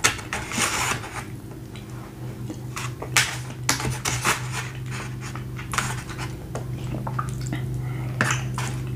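Close-miked eating: chewing and mouth sounds, with a metal fork scraping and clicking against a foam takeout container several times, over a steady low hum.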